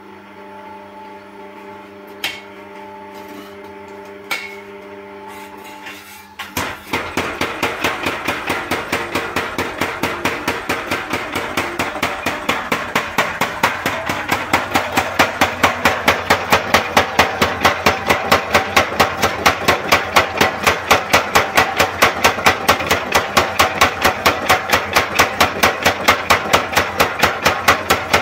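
Belt-driven electric power hammer running single-phase 220 V: its motor hums with two light clicks, then about six and a half seconds in the hammer starts striking in rapid, steady blows. It is forging red-hot bearing-race steel, drawing it out thin.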